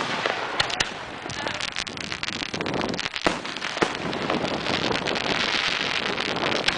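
Consumer 1.3G aerial firework shells and cakes bursting: a fast run of sharp bangs and pops, with a dense crackle from about four seconds in.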